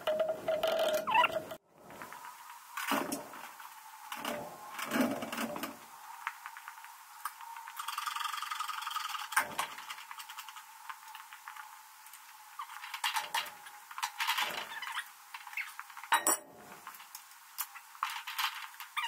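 Scattered metal clinks and knocks of hand work on a forklift's lift chain and fork carriage, a dozen or so separate strokes.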